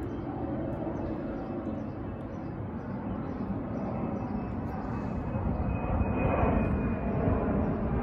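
Low, steady rumble of a passing engine, growing louder about six seconds in, with a faint thin whine as it swells.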